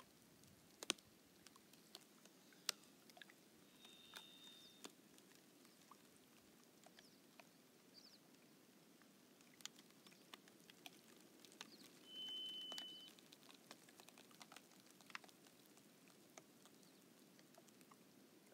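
Thin lake ice crackling faintly at a thawing edge as it shifts in a light breeze: scattered sharp ticks and clicks. Two long, steady, high whistled notes sound about four seconds in and about twelve seconds in, the second louder.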